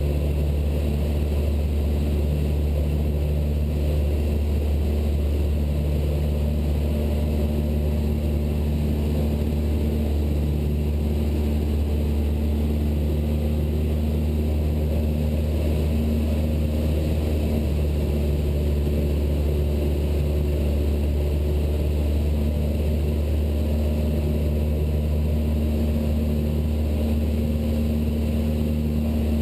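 Cessna 172 Skyhawk's piston engine and propeller droning steadily in cruise flight, heard from inside the cabin, with no change in power.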